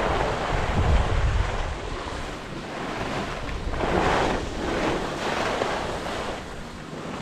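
Wind buffeting the microphone of a camera carried by a downhill skier, with skis hissing over groomed snow in swells as they turn.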